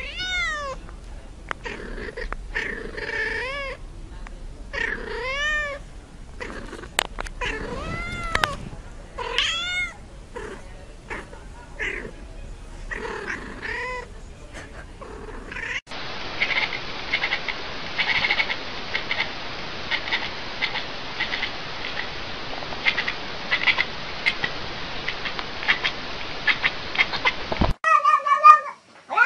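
Domestic cat meowing over and over in long, drawn-out calls that rise and then fall in pitch, about one every second or two. For about twelve seconds in the second half a steady rushing noise takes over, and the meowing comes back near the end.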